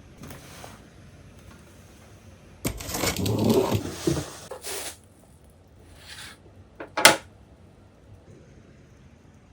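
Packaging being handled during unboxing: a scraping, rustling stretch lasting about two seconds, a little under three seconds in, then one sharp click about seven seconds in.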